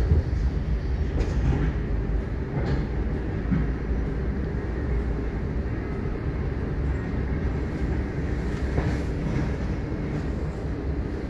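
Moderus Alfa HF07DC tram running along the track: a steady low rumble of wheels on rail and traction drive, with a few short knocks.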